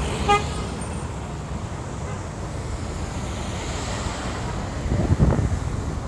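City street traffic running steadily, with wind buffeting the microphone. A brief pitched beep sounds about a third of a second in.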